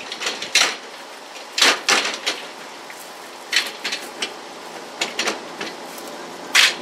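Steel pinball dolly clanking and rattling as it is slid across a pickup's tailgate and lifted down: a run of sharp metal knocks at uneven spacing, with loud ones about half a second in, near two seconds in and near the end.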